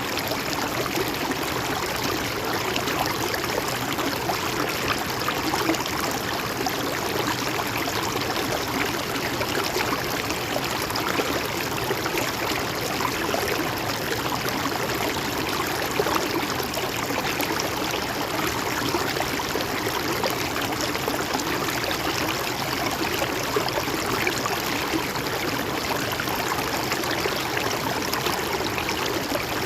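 Shallow river or stream flowing steadily over stones, a continuous babbling and trickling rush of water.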